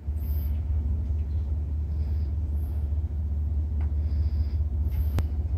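Steady low rumble of the diesel locomotives of an approaching Norfolk Southern freight train, led by an EMD SD70ACe, moving slowly. A single short click sounds about five seconds in.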